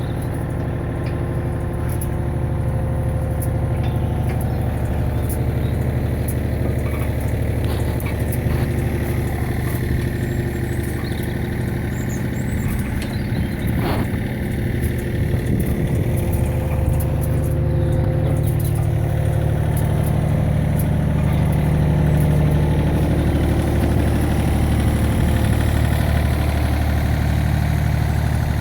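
An engine idling steadily, its low hum growing slightly louder over the last third.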